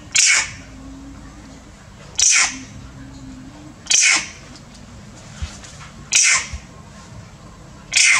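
Young long-tailed macaque screaming in pain as its wounds are cleaned: five harsh, shrill cries about half a second each, coming roughly every two seconds.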